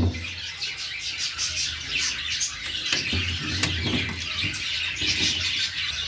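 A colony of small finches chirping and twittering, many calls overlapping continuously. A sharp knock sounds right at the start.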